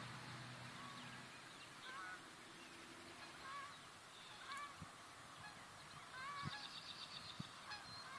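Faint bird calls: short calls repeated about once a second, with a quicker, higher chattering call about six seconds in.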